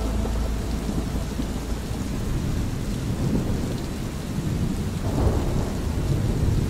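Steady rain with rolling thunder: low rumbles swell about three seconds in and again, loudest, around five seconds in.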